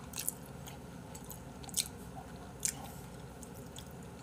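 Faint chewing of a mouthful of udon noodles, with a few small wet mouth clicks, two of them a little louder about two and two and a half seconds in.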